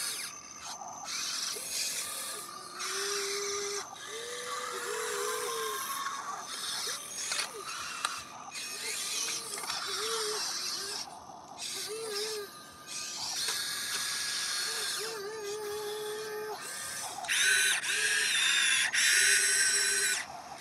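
Small electric gear motors of a Huina radio-controlled toy excavator and a toy dump truck whirring and grinding in short stop-start bursts, with brief rising and falling whines. The loudest bursts come near the end.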